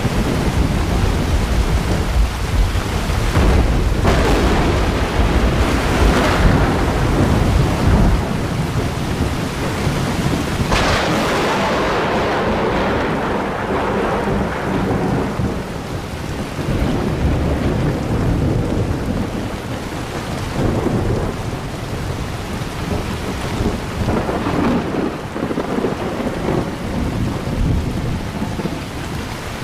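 Steady heavy rain with thunder. A long low rumble rolls through the first several seconds, a sharper thunderclap breaks about eleven seconds in and fades away, and weaker rumbles follow later.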